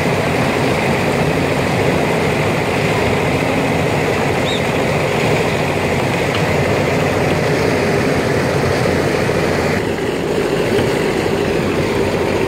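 Hyundai crawler excavator's diesel engine running steadily as the machine digs soil with its bucket. The sound turns duller about ten seconds in.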